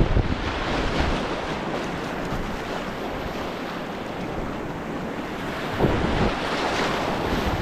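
River whitewater rushing steadily through a rapid, with wind buffeting the microphone in a few low gusts.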